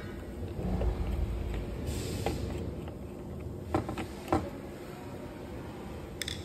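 Hands handling a circuit board in a hard plastic housing as it is freed from its screws and lifted out: a few light ticks and scrapes, and two sharp clicks about a second apart near the middle, over a steady low background noise.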